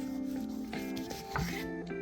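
Background music of held, changing notes, with a few knife cuts on a cutting board, about once every second.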